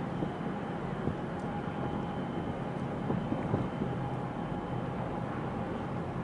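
Steady low harbour rumble with wind buffeting the microphone, and a faint steady hum held above it.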